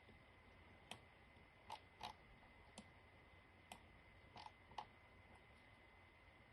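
Faint, scattered clicks of a computer mouse, about seven over several seconds, against near-silent room tone with a faint steady high whine.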